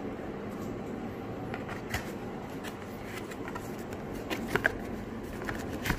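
Hands handling and opening a cardboard product box: scattered light rustles and taps of the card flaps and packaging, with a few sharper clicks about four and a half seconds in and again near the end, over steady room noise.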